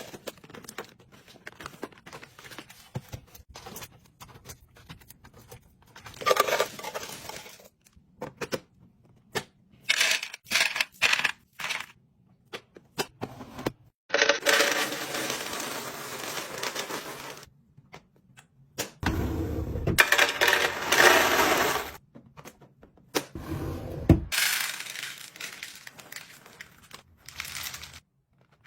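Sweets and snacks being unpacked and stocked into a fridge: plastic wrappers and bags crinkling and tearing, with items clicking and clattering as they are set into containers. Several longer stretches of steady rustling come and go, each a few seconds long.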